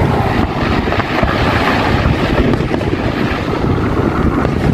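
Wind buffeting the microphone: a steady, loud, rough rumble with hiss above it.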